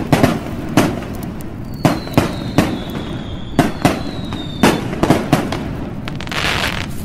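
Fireworks sound effect: a string of sharp bangs, one or two a second, with a high whistle that falls slightly in pitch through the middle and a denser crackle near the end.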